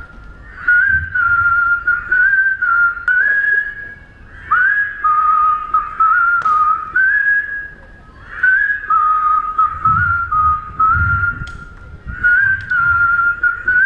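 A large crowd whistling a tune together: one clear melody stepping up and down between a few notes, in phrases of about four seconds with short breaths between.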